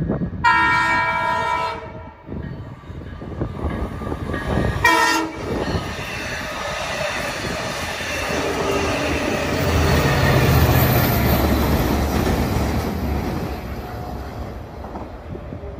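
Long Island Rail Road passenger train of bilevel coaches sounds its horn, one long blast and then a short one a few seconds later, as it approaches. It then passes close by with rolling rail clatter and a deeper rumble that swells about ten seconds in and fades near the end.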